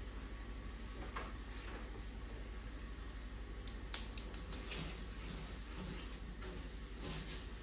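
Cleaning at a kitchen sink: water and wet rubber-gloved hands working, with a quick run of small sharp clicks about four seconds in and scattered swishes after, over a steady low hum.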